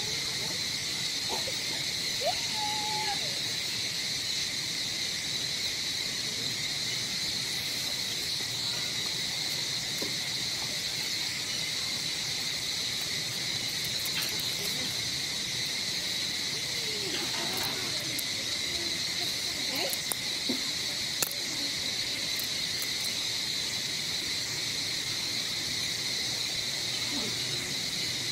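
Steady, high-pitched insect chorus droning without a break. A few faint short calls rise and fall over it about three seconds in and again after the midpoint, with a couple of sharp clicks.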